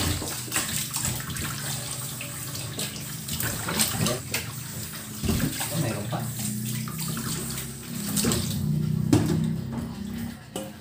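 Kitchen tap running into a stainless steel sink and a pot as raw chicken pieces are rinsed by hand, water splashing over the meat, with scattered short knocks against the pot. The running water stops near the end.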